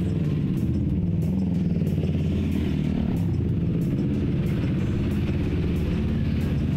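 A motor vehicle engine running steadily, a low even hum that holds the same pitch and level throughout.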